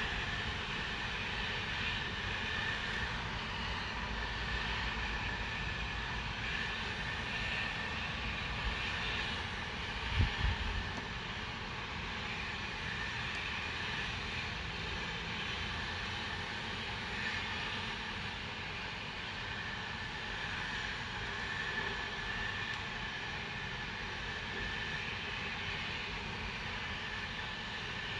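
Loud, steady industrial hissing from a factory, with a steady high tone running through it. A brief low rumble comes about ten seconds in.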